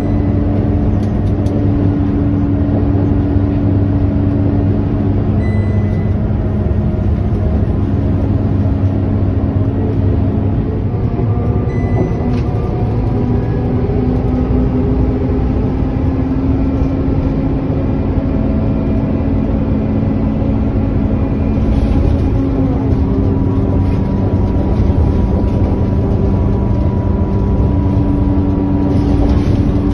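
Inside a Scania K230UB city bus on the move: the rear-mounted diesel engine drones steadily under road rumble, its note stepping down and then climbing again as the bus slows and picks up speed. A few light clicks and rattles come from the cabin.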